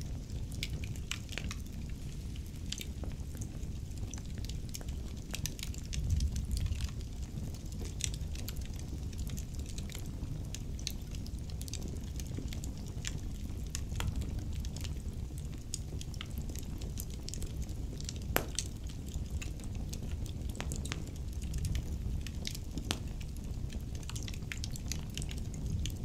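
Wood fire burning in a fireplace: logs crackling with frequent, irregular sharp pops and snaps over a low, steady rumble of the flames, with a louder dull thump about six seconds in.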